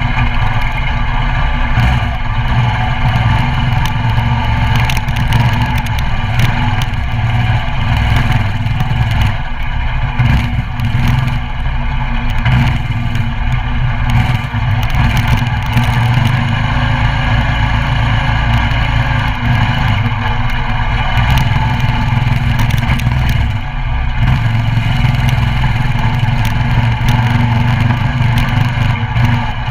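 Coleman CT200U mini bike's 196cc single-cylinder four-stroke engine running under way, its speed shifting a little with the throttle.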